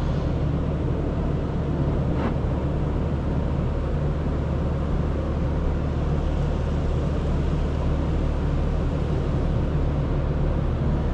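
Automatic car wash spraying water and foam over the car's windshield and roof, heard from inside the cabin as a steady wash of noise over a constant low rumble.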